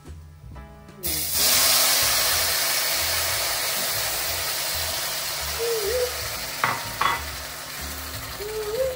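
Stock poured into a hot, oiled pan of couscous and vegetables, sizzling loudly the instant it hits, about a second in, then slowly dying down as it is stirred. Two sharp clinks of the fork against the pan come past the middle.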